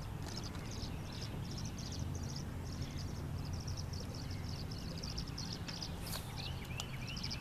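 Crickets chirping steadily, about three short high chirps a second, with a few short rising bird calls near the end over a low outdoor rumble.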